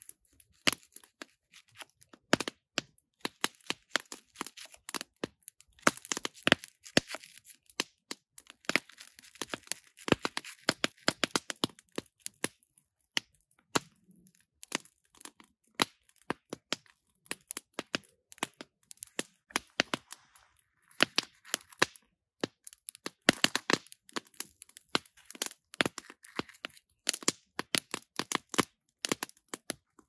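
Wood fire crackling and popping in many sharp, irregular cracks, with spells of hiss from beef and onions searing on a hot stone slab set over the flames.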